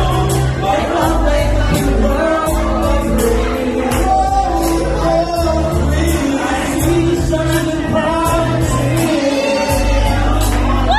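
A male vocal group singing into microphones over loud backing music with deep bass and a steady beat.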